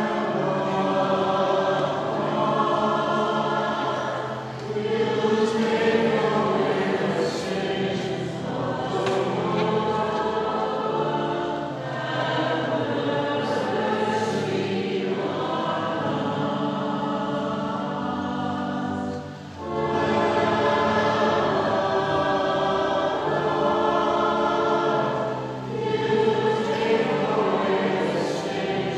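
Choir singing a slow sacred piece with sustained accompaniment, in long held phrases with short breaks between them.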